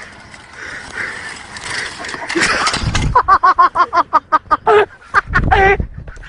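A person's high-pitched voice in a rapid run of short bursts, about seven a second, then a longer wavering cry near the end. A loud rush of noise comes just before the bursts, about halfway in.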